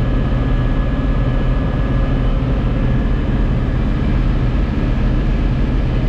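Case IH CS86 tractor engine running steadily at road speed, towing a loaded bale wagon, heard from inside the cab.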